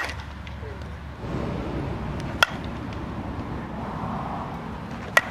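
Softball bat hitting softballs in batting practice: three sharp hits, each with a brief ring, at the very start, about two and a half seconds in, and near the end.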